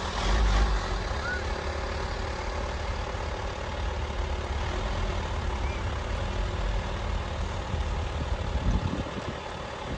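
A steady low rumble throughout, slightly stronger near the start and again near the end.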